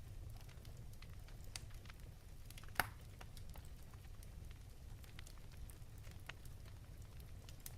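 Wood fire crackling: scattered sharp pops and snaps from burning logs over a low steady rumble, with one louder snap about three seconds in.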